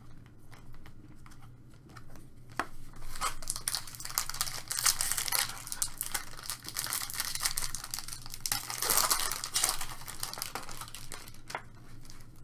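Foil wrapper of a Chrome baseball card pack being torn open and crinkled by hand. A crackling tear starts about three seconds in and runs for several seconds, after a few light clicks of cards being handled.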